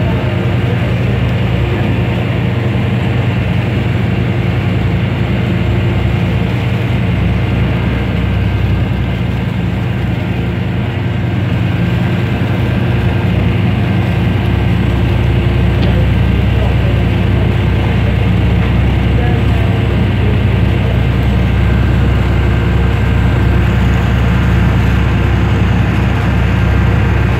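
Boat engine running, a steady low hum that does not change.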